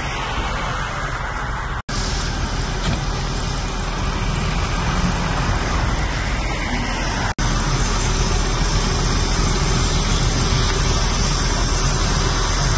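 Steady traffic and vehicle engine noise with a strong low rumble, cutting out for an instant twice: about two seconds in and again after about seven.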